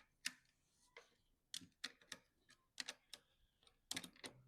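Faint, irregular sharp clicks and metallic taps of a hand tool working loose the nuts that hold the glass ink tanks of a GZ flex printer.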